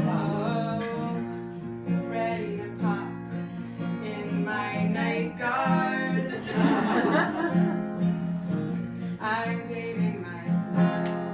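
Acoustic guitar strummed in steady chords while a woman sings over it.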